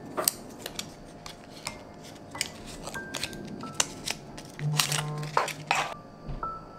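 Thin protective plastic wrap being peeled and crinkled off a new smartwatch: a string of sharp crackles and clicks, thickest about five seconds in. Soft piano music plays underneath.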